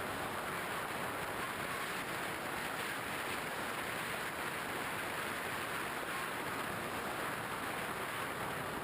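Steady rushing wind noise of airflow over a camera carried on a flying RC plane, with no distinct motor tone.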